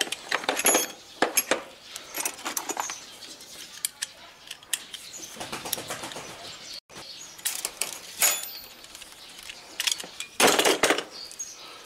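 Pliers and a spanner clicking and clinking against a welding lead's metal ground clamp as it is taken off, with the rubber cable rustling. The clinks come irregularly, with a longer scraping rustle near the end.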